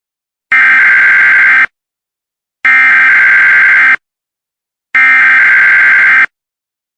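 Emergency Alert System SAME header: three harsh, buzzing digital data bursts, each just over a second long, with about a second of silence between them. This is the coded preamble that opens an EAS alert.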